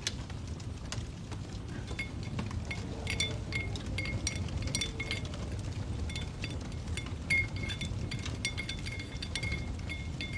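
A glass clinking again and again at the same pitch, a few times a second, like a paintbrush knocking against a glass water jar as it is rinsed. Under it runs the low rumble and scattered pops of a crackling fire.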